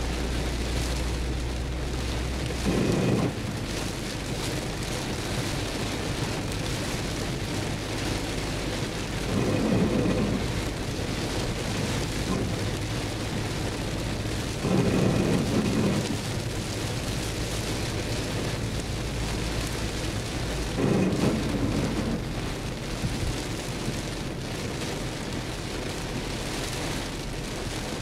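Heavy rain pelting a moving car's windshield and roof, with tyres on the wet road, as a steady wash of noise. About every six seconds a louder swoosh lasting about a second: the windshield wipers sweeping on an intermittent setting.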